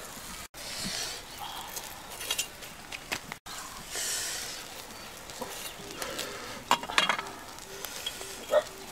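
Whole fish grilling on a stick grill over wood embers, sizzling and crackling, with sharp clicks as the fish are handled and laid out on leaves.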